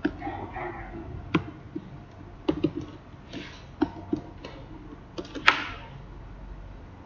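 Computer keyboard keys clicking as a short word is typed: a scattering of uneven keystrokes, with a quick cluster about two and a half seconds in and one louder key strike about five and a half seconds in.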